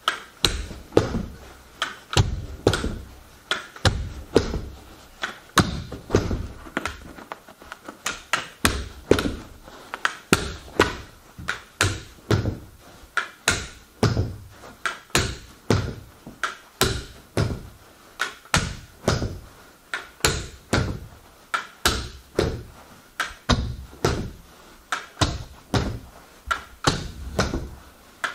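Carpet knee kicker struck again and again with the knee, a steady run of sharp thuds about one and a half a second, stretching the carpet flat and working out the wrinkles.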